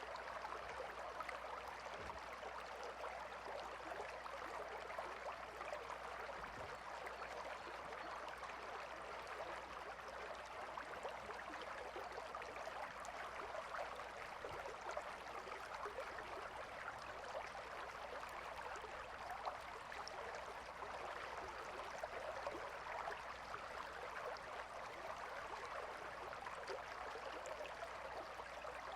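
Calm river flowing steadily: a continuous rush and babble of water with no breaks.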